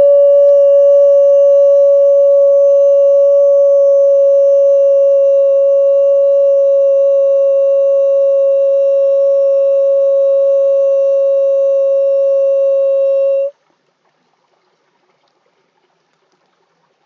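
A single long note held at a steady pitch, ending abruptly about thirteen and a half seconds in.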